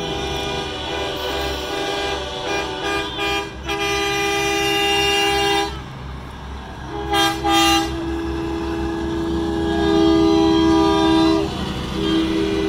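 Semi truck's air horns blowing long, chord-like blasts over a diesel engine's low rumble as the truck passes. The horn drops out briefly around six seconds in, gives two short loud toots, then holds again.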